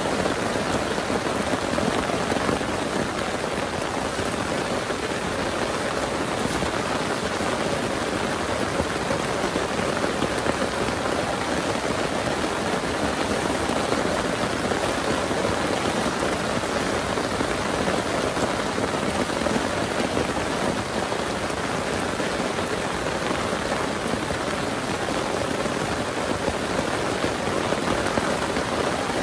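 Heavy rain pouring steadily, a dense, even patter with no breaks.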